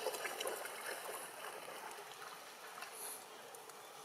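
Water splashing as a macaque wades quickly through a shallow channel, loudest in the first second, then settling into the steady trickle of flowing water.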